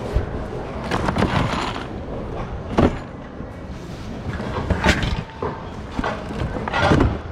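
Clattering and knocking of items being rummaged through in a thrift bin, with several sharper knocks among the rustle of handled goods.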